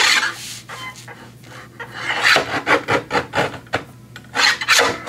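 Guillotine paper cutter's steel blade scraping down through paper against the bed's cutting edge on test cuts, in three bursts of quick scraping strokes.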